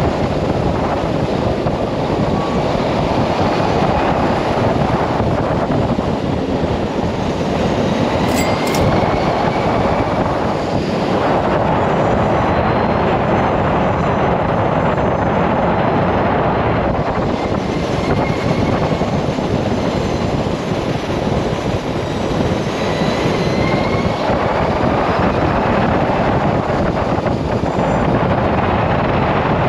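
Steady rush of wind and road noise at speed, heavy on the microphone. A faint whine rises in pitch a few times.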